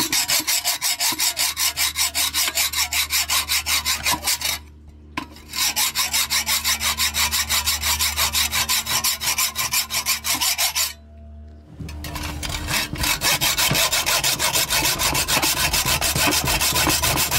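Hacksaw sawing through metal on a yacht's masthead fitting (top cap), in quick, even back-and-forth strokes. The sawing stops briefly twice and starts again.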